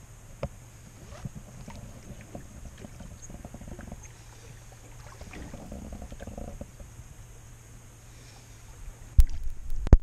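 Canoe paddling on calm water: quiet paddle strokes and water gurgling along the hull, with small knocks now and then. A sudden loud thump about nine seconds in, then a short loud rumble.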